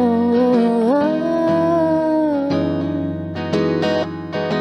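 A woman singing a long held note that slides up about a second in, over an acoustic guitar strummed in drop D tuning.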